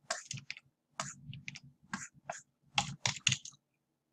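Computer keyboard keys tapped in a quick, irregular run of clicks that stops about three and a half seconds in.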